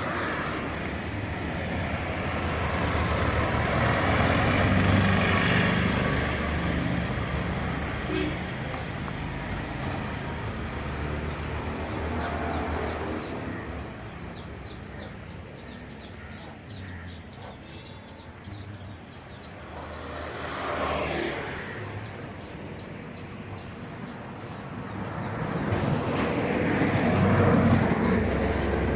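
Road traffic: vehicles passing, the noise swelling as each one goes by, once early, briefly about two-thirds in, and again near the end. A fast, high ticking at about four a second runs through the middle.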